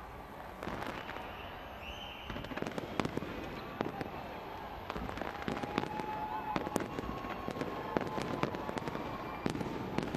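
Fireworks display going off: a busy string of sharp bangs and crackles that starts about two seconds in and keeps on, over a steady rumbling wash.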